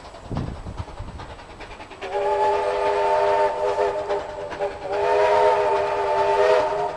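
Diesel locomotive's horn sounding two long blasts, each a steady chord of several notes. The first starts about two seconds in, and the second follows after a short break.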